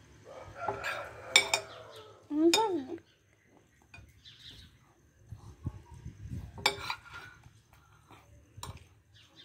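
Metal spoon clinking and scraping against a ceramic plate, with sharp clinks about a second and a half in, near seven seconds and near nine seconds. A short pitched call that slides up and down, the loudest sound, comes about two and a half seconds in.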